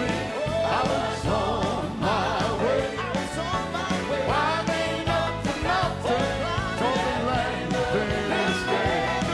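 Gospel choir singing with a live band, the voices holding long notes with wide vibrato over steady instrumental backing.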